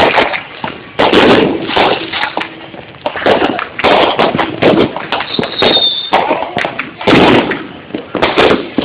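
Fireworks exploding overhead in a steady run of loud bangs, one every second or two, each trailing off in crackle, with a brief high whistle near the middle.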